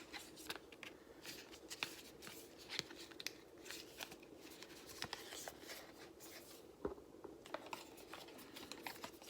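Paper and cardboard packaging being handled and unwrapped by hand: scattered light rustles, crinkles and small clicks as the Apple Watch's magnetic charger is taken out of its wrapping.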